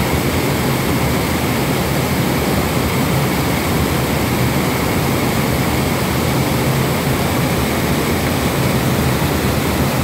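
Waterfall and fast river current rushing: a steady, loud wash of noise that holds even throughout.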